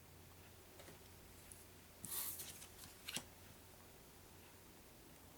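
Game cards being handled: a brief sliding rustle about two seconds in and a light tap about a second later, over quiet room tone.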